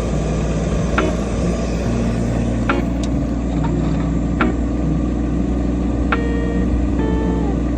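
Engine of heavy machinery running steadily at an even speed, with a few sharp clicks or knocks at irregular intervals. Pitched, sliding notes come in near the end.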